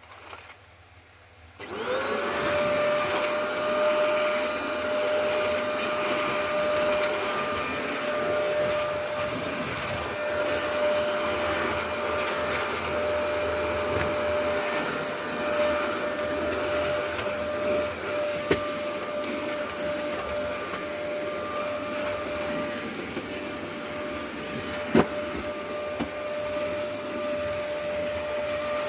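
Vacuum cleaner switched on about two seconds in, its motor spinning up quickly to a steady whine and running on with an airy rush. Two sharp knocks sound later, one stronger than the other.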